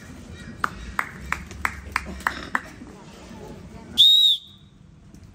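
About seven sharp knocks, roughly three a second, then about four seconds in a single short, loud whistle blast.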